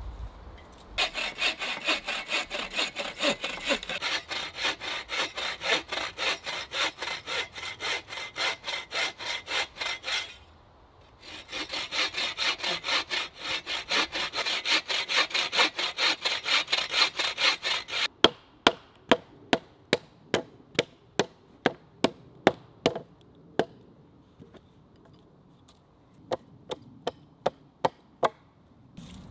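Hand bow saw cutting through a wooden log in quick, even back-and-forth strokes, with a short break about ten seconds in. From about eighteen seconds the sawing gives way to sharp hatchet chops into a log, about two a second, which pause for a few seconds and start again near the end, cutting a notch.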